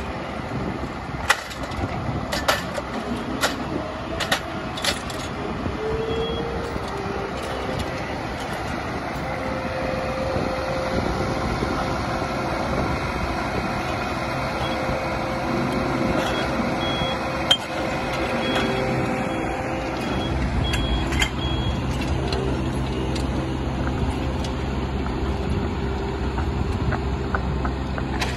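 Mechanical paver-laying machine running as it carries and sets a layer of concrete pavers, with several sharp knocks in the first few seconds. A high reversing alarm beeps on and off, and from about two-thirds of the way through a deeper engine drone grows louder.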